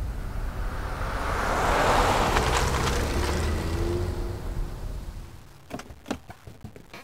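A car passing: road noise swells to a peak about two seconds in and fades away, over a steady low rumble. A few sharp knocks follow near the end.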